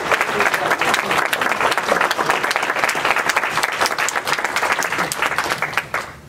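Audience clapping and applauding, the dense clapping thinning out and dying away near the end.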